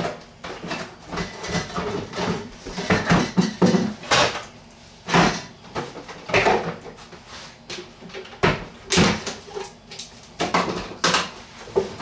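Kitchen clatter from rummaging in low cupboards: a string of irregular knocks and bangs as cupboard doors open and shut and pans and utensils knock together.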